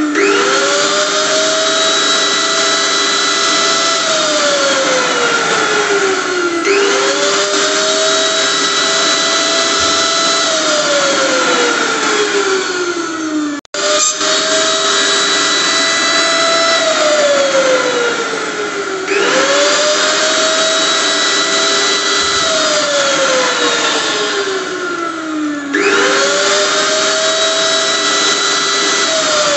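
Electric blender motor repeatedly spinning up to speed with a rising whine, running steadily for a few seconds, then winding down with a falling pitch, five times at about six-and-a-half-second intervals. The sound cuts out for an instant about fourteen seconds in.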